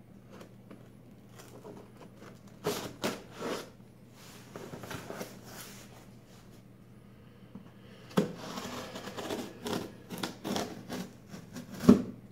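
Blade of a Smith & Wesson Power Glide folding knife slicing through packing tape on a cardboard box, with cardboard scraping and rustling in bursts as the flaps are worked open. A single sharp knock near the end is the loudest sound.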